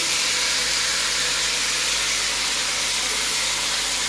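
Seasoned pork pieces frying in hot oil in a pot, a steady sizzling hiss.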